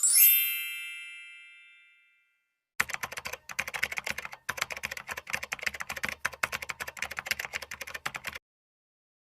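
A bright chime dings once and fades over about two seconds. After a short pause, rapid computer-keyboard typing clicks for about five seconds and stops abruptly.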